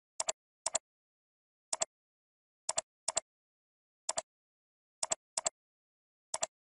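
Computer mouse button clicks: nine sharp clicks at uneven intervals, each a quick double tick of press and release, with dead silence between.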